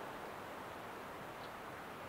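Steady rushing outdoor ambience, an even noise with no distinct events.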